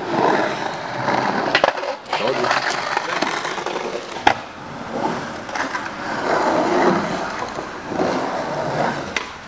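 Skateboard wheels rolling and carving across the concrete bowl of an empty swimming pool, the rumble swelling and fading with each pass, with a few sharp clacks of the board.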